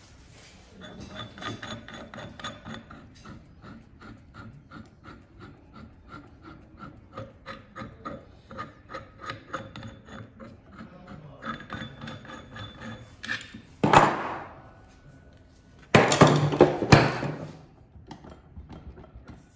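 A two-jaw gear puller is being screwed in to draw the flywheel off a smart bike trainer's shaft, with a long run of quick metallic clicks. About fourteen seconds in comes a sharp, loud crack as the flywheel breaks free. It is followed by a burst of clattering and scraping as the puller and flywheel are handled.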